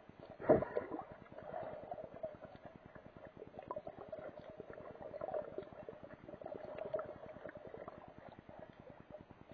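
Muffled underwater sound heard from inside an action camera's waterproof housing: a dense, fast crackle of clicks over a wavering low hum, with one loud knock about half a second in.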